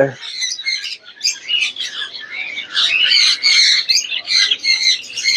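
A crowd of small caged parrots, conures among them, squawking and chirping over one another in quick, overlapping shrill calls, thickest in the second half.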